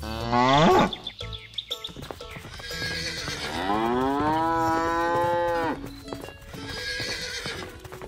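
Cow mooing: a short call that swoops up and back down in the first second, then about three and a half seconds in a long drawn-out moo of about two seconds that rises, holds steady and drops off at the end.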